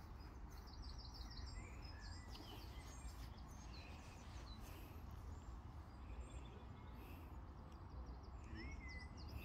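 Faint outdoor ambience: scattered bird chirps and short trills over a low, steady rumble.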